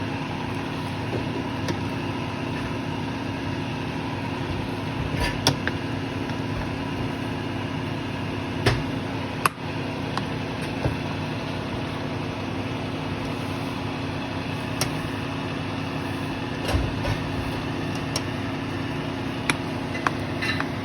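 A steady mechanical hum made of several fixed tones runs throughout. Over it come a handful of sharp clicks and knocks of a utensil against a cooking pot, scattered a few seconds apart.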